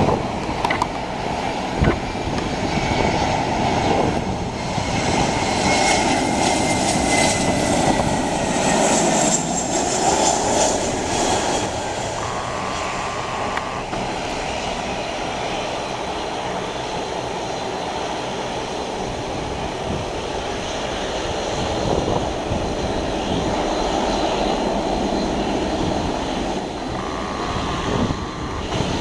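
Airbus A321 jet engines running with a steady rushing noise; a faint whine slowly falls in pitch over the first several seconds.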